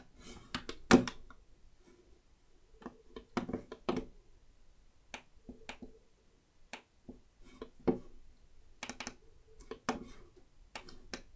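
Computer mouse buttons clicking in irregular single and double clicks, with the loudest about a second in.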